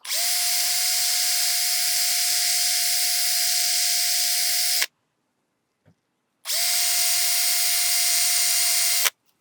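Electric drill running at a steady pitch for about five seconds, stopping, then running again for about two and a half seconds, drilling into a broken bolt in an outboard engine block. The bit, which the driller thinks is dull, is making slow progress.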